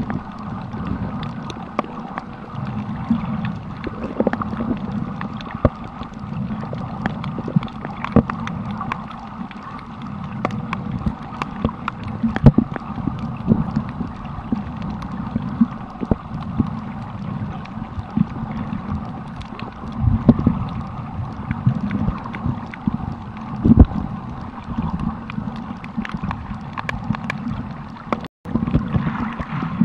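Underwater sound picked up by a camera submerged on a coral reef: a muffled, continuous water rumble and slosh with frequent sharp clicks and crackles. The sound drops out for an instant near the end.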